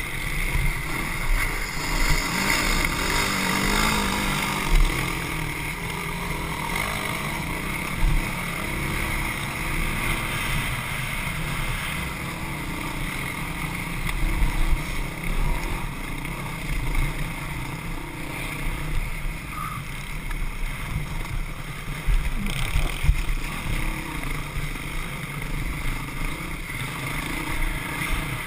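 Dirt bike engine running at shifting revs as the bike is ridden over a rough dirt trail, heard from a camera on the bike or rider, with wind rushing over the microphone. Occasional sharp thumps stand out, loudest about 23 seconds in.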